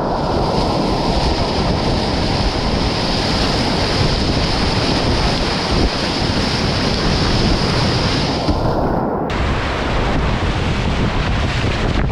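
Whitewater rapids rushing and splashing around a kayak, with wind buffeting the helmet-camera microphone; the hiss of the water changes abruptly about nine seconds in.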